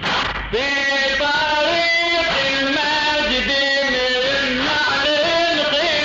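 A radood's male voice chanting an Arabic Husseini elegy (latmiya), drawing out long notes that waver and bend in pitch. A new phrase begins with a rising note about half a second in.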